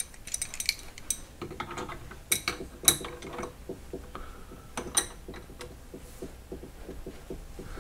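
Steel wrenches clicking and clinking against the nut on top of a milling machine's power drawbar as it is tightened half a turn, with three sharp, ringing metal clinks among the softer clicks.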